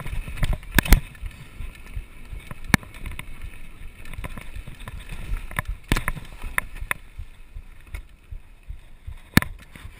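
A mountain bike rolling fast down a rough dirt and stone trail, with a low rumble from the tyres and wind buffeting the microphone. Sharp knocks and rattles come as the bike hits stones: a pair about a second in, then single ones near three, six and nine and a half seconds.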